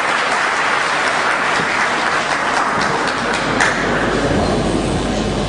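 Audience applauding in a large hall, dense clapping that thins out in the last second or so.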